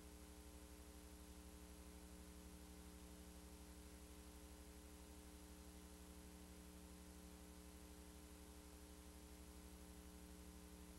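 Near silence: a faint steady electrical hum with a light hiss.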